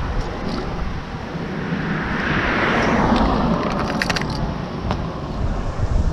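Wind buffeting the microphone with a low rumble, swelling near the middle. About four seconds in, a quick cluster of light clicks and rattles as lures and hooks are handled in a clear plastic tackle box.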